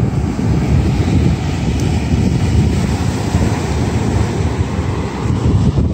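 Wind buffeting the microphone in a loud, rough low rumble, with surf on the beach behind it.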